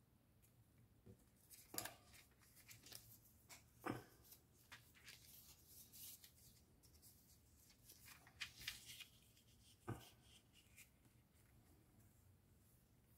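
Paper and stationery being handled: soft rustling with scattered light taps and clicks, three of them sharper than the rest.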